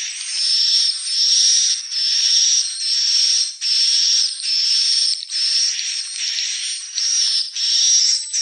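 Swiftlet calls: a steady chain of high, buzzy, hissing chirrups, about ten in a row, each under a second long with only brief breaks between them.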